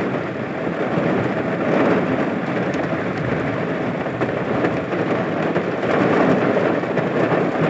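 Heavy rain in strong wind: a dense, steady rush of downpour that swells a little around two and six seconds in.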